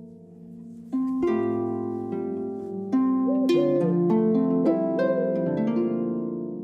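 Harp music: plucked notes start about a second in and build into ringing chords. Over them an owl hoots in two-note pairs, twice, from about halfway through.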